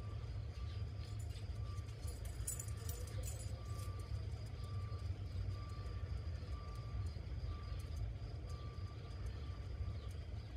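Steady low outdoor rumble, with a faint high tone that comes and goes about once a second and a few light ticks about two and a half seconds in.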